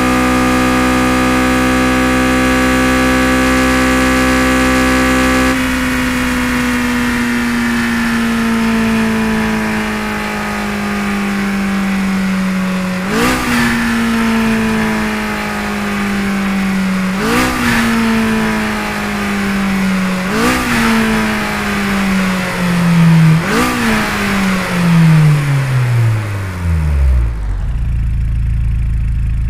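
Sports car engine and exhaust held at steady high revs, then the revs sag slowly, broken by four quick throttle blips, each with a sharp pop. Near the end the revs drop away to a low rumble.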